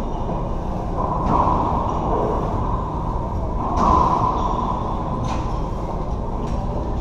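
Racquetball rally in an enclosed hardwood court: about four sharp, echoing smacks of the ball off racquets and walls, the loudest a little past halfway, with sneakers squeaking on the wooden floor over a steady low rumble.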